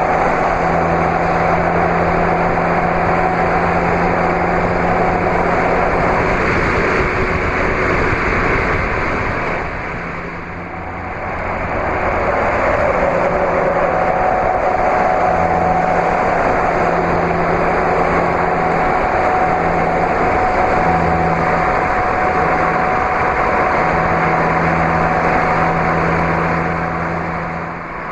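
Vehicles at highway speed: a steady engine drone with road and wind noise, dipping briefly about ten seconds in.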